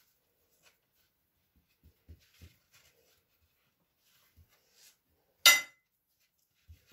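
Quiet handling sounds of hands rolling filo pastry on a marble counter, with a few soft taps, and one sharp clink with a short ring about five and a half seconds in.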